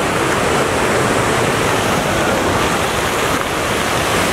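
Steady rush of water from a large pool's fountain jets spraying and splashing.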